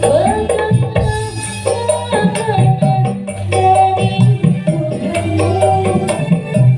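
Live band music played loud through a PA sound system: a steady percussion rhythm over a bass line, with a melodic lead line that slides between notes.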